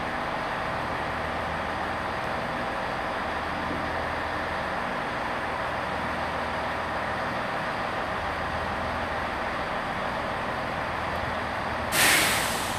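Class 166 Turbo diesel multiple unit standing at the platform with its underfloor diesel engines idling steadily. Near the end a sudden loud hiss bursts out and fades within about a second.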